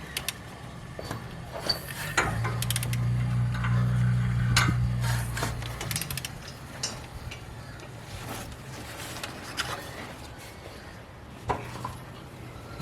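Ratchet wrench clicking and metal tools clinking while the engine's crankshaft is turned by hand to bring a big end bearing into line. A steady low hum runs from about two to six seconds in.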